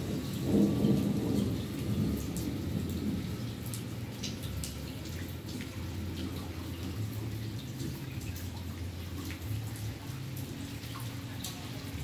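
A low rumbling noise, loudest in the first few seconds and then settling to a steady low level, with a few faint clicks.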